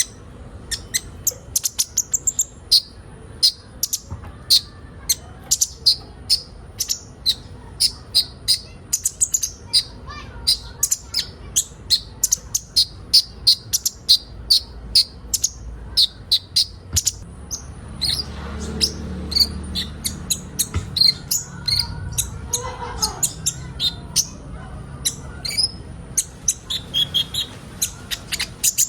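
A group of kolibri ninja sunbirds chirping fast: a steady run of short, high, sharp chirps, several a second, overlapping.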